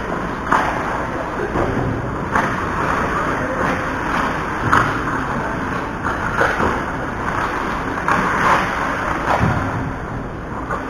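Ice hockey play on an arena rink: a steady rushing noise with scattered short clacks and scrapes from skates, sticks and puck on the ice.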